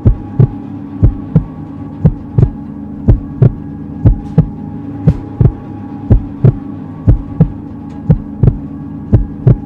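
Heartbeat-style sound effect: paired low thumps, lub-dub, about once a second over a steady low hum.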